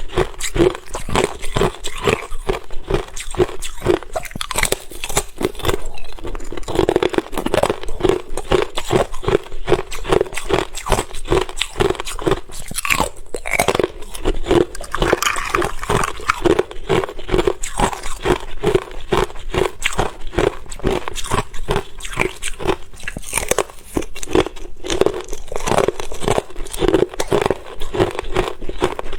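Ice being chewed close to the microphone: rapid, continuous crunching of ice between the teeth, several bites a second.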